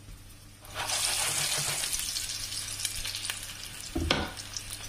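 Flour-dusted meatballs sizzling in hot oil in a non-stick frying pan; the sizzle starts about a second in. A knock near the end as a spatula turns them in the pan.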